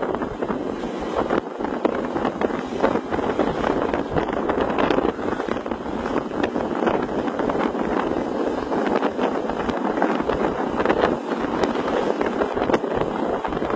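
Steady road and wind noise of a vehicle travelling fast on a highway, with frequent short rattles and knocks throughout.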